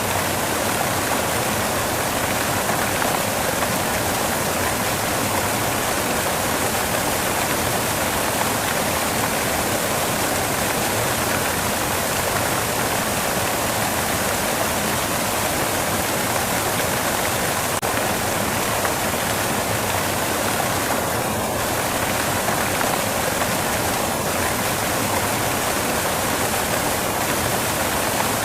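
Steady white-noise rushing with no pitch or rhythm, weighted toward the higher range and much like running water.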